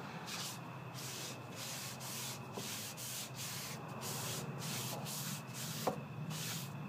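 Rag rubbing alcohol-based dye into a sanded bird's eye maple board, in quick back-and-forth strokes of about two a second.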